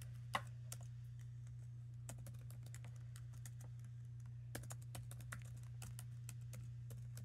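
Typing on a 2012 MacBook Air's built-in keyboard: scattered key clicks in short, irregular runs as a password is entered, over a steady low hum.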